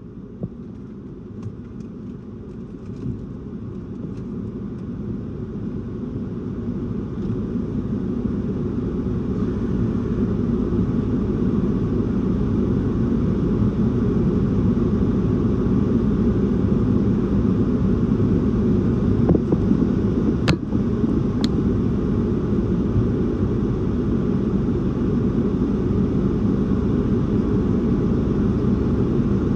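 Gusty thunderstorm outflow wind rumbling against the car and microphone, building up over the first ten seconds or so and then blowing steadily, with two short clicks a little past two-thirds of the way in.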